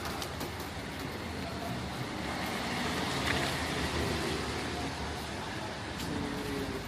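City street traffic: vehicles passing on wet roads, a steady hiss of tyres and engines that swells a little around the middle.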